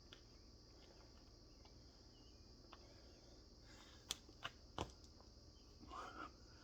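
Faint, steady high-pitched chirring of crickets, with three sharp clicks a little past halfway and a brief louder sound near the end.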